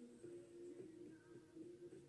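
Faint background music with a few held notes.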